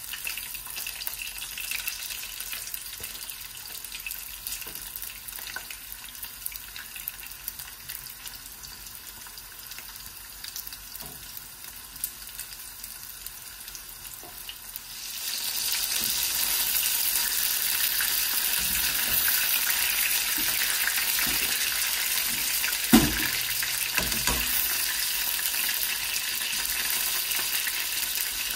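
Seasoned chicken breast cubes frying in hot oil in a wok, a steady sizzle that becomes much louder about halfway through. A single sharp knock sounds a few seconds later.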